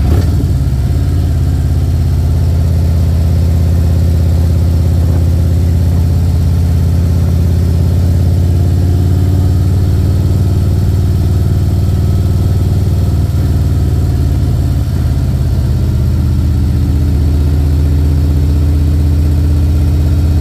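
Harley-Davidson touring motorcycle's V-twin engine running steadily at road speed, heard from the bike itself, its pitch drifting slightly up and down through the curves.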